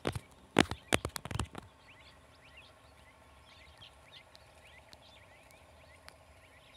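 A quick cluster of sharp clicks and knocks in the first second and a half, then small birds chirping faintly and repeatedly over a quiet rural background.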